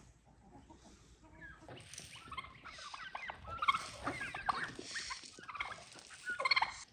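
A mixed flock of farmyard turkeys and chickens calling busily at feeding time as grain is scattered for them. Many short calls overlap, starting about a second and a half in and growing denser, then cut off suddenly near the end.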